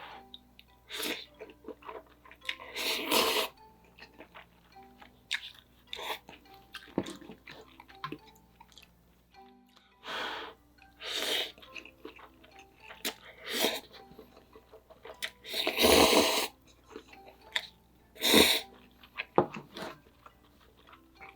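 Intermittent eating and food-handling noises: irregular short crinkles, clicks and bursts, the loudest about three seconds in and twice near the end, over soft background music.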